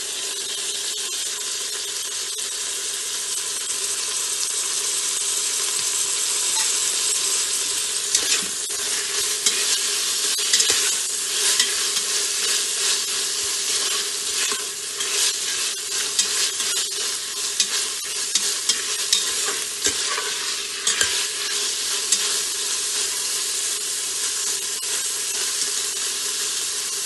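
Frozen mixed vegetables sizzling in hot oil in a stainless-steel Instant Pot inner pot. A steel spoon stirs them, scraping and clicking against the pot, with the clicks coming thick from about eight seconds in.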